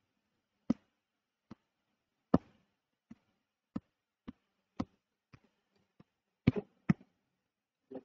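About a dozen short, sharp clicks at irregular spacing, the clicking and scrolling of a computer mouse; two a little louder, about two seconds in and near the end.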